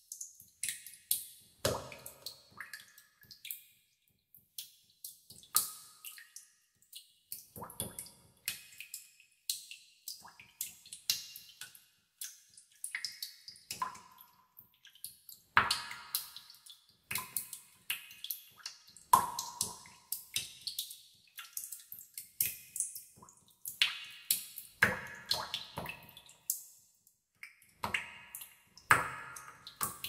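Water drops dripping irregularly into a pool in a cave, with echo: sharp plinks of varying loudness, several a second, some with a brief ringing pitch.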